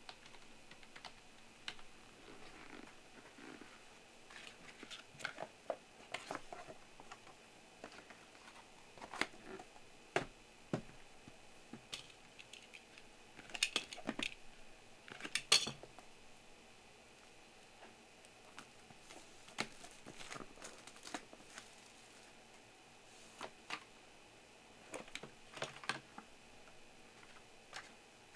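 Scattered light clicks, taps and crinkles as a trading-card box and the card's wrapping are handled and unwrapped, with a couple of louder crinkling bursts about halfway through.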